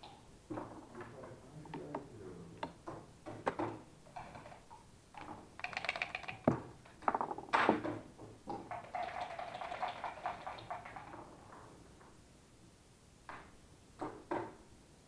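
Backgammon at the board: an irregular run of clicks and knocks as checkers are set down and moved, with a short dice rattle about five and a half seconds in.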